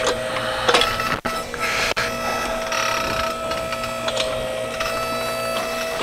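Electric motor and hydraulic pump of a homemade electric backhoe running with a steady whine while the boom and bucket are worked, with a few clunks in the first couple of seconds.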